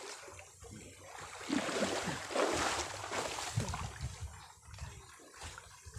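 River water sloshing and splashing around men wading chest-deep, loudest in the middle seconds.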